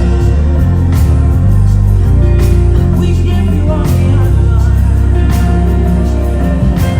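Live gospel band with a choir singing over a prominent Fender Jazz electric bass line and drums, the bass moving between notes under the voices and the drum hits landing about every second and a half.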